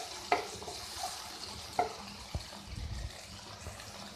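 Chopped onion and tomato sizzling in hot oil in a non-stick wok, a steady hiss, with a few knocks and scrapes of a spatula against the pan as it is stirred.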